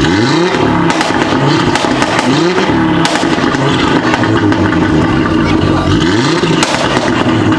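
Audi RS3 8V's turbocharged five-cylinder engine through a Milltek exhaust, its note climbing in pitch three times (at the start, about two seconds in, and near the end), with several sharp pops and crackles in between.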